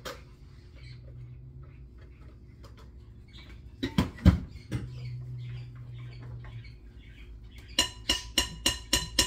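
Kitchen utensils knocking and scraping in a glass mixing bowl of whipped egg white. There are two sharp knocks about four seconds in, and near the end a quick run of about eight ringing taps on the glass bowl, about four a second.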